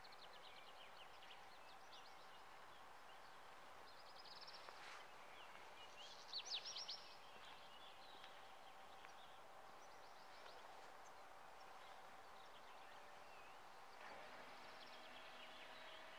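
Faint songbirds chirping and trilling over a quiet background, with a quick run of loud chirps about six seconds in.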